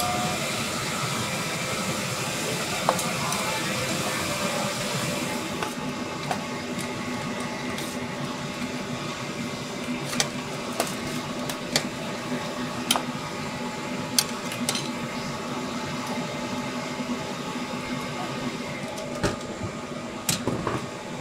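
Metal tongs clicking and scraping against a stainless steel tray of sliced grilled meat, in short sharp clinks that come every second or so, over a steady background hum.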